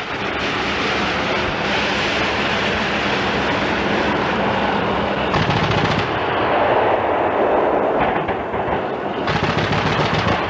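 Sustained rapid automatic gunfire, shot after shot in quick succession, with the sound changing abruptly a few times.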